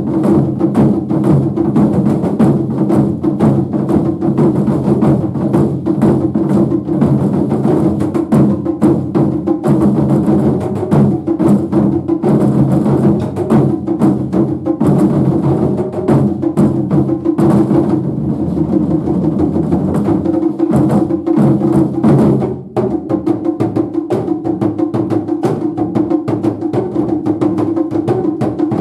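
Japanese taiko drum ensemble playing a fast, dense rhythm of strokes. The loudness dips briefly about three-quarters of the way through, then the drumming carries on.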